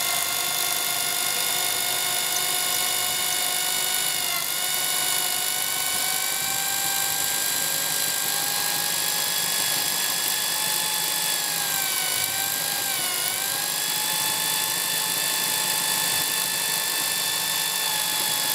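Bosch GSB 18-2 RE drill motor whining steadily at low speed as a cobalt HSS-Co bit drills out a hardened M5 screw of 30KhGSA steel. The slow speed is to keep the steel from burning and work-hardening, and it is cutting without dulling the bit. The pitch dips briefly about four seconds in and again around twelve seconds in.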